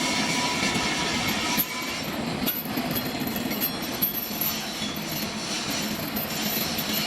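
Metal-turning lathe running, a steady mechanical noise with thin whining tones over it. The sound drops and changes about one and a half seconds in.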